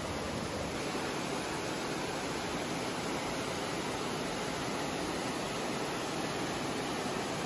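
A waterfall crashing into a pool, a steady, unbroken rush of water.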